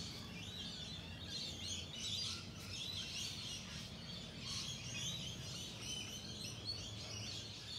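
Birds chirping, with many short, overlapping calls, over a low steady hum.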